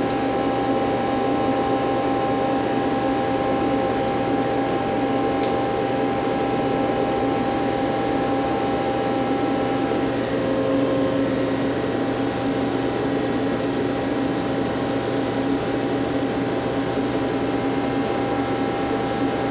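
Hardinge Conquest T-42 CNC lathe running with a steady machine hum that carries several steady tones, while its main spindle is put through C-axis indexing. Two faint clicks, about five and ten seconds in.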